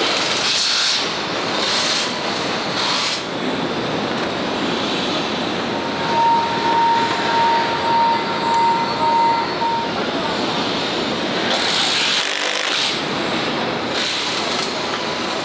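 Steady tractor assembly-line factory noise, with several short bursts of hiss. About six seconds in, a steady high tone sounds for about four seconds.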